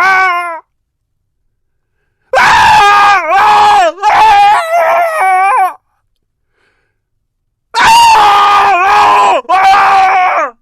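A person screaming: loud, high-pitched screams that bend up and down in pitch, coming in groups separated by complete silences of about two seconds.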